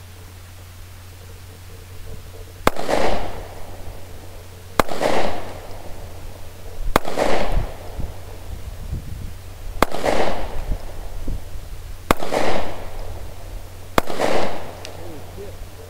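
Taurus PT709 Slim 9mm pistol firing steel-case ammunition: six single shots about two to three seconds apart, each followed by a short echo.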